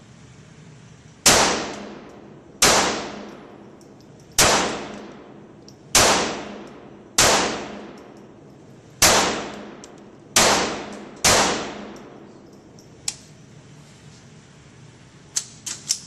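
Ruger Mk. II .22 LR semi-automatic pistol firing eight shots at an uneven pace, each sharp crack trailing off in a short ring. A few smaller sharp clicks follow near the end.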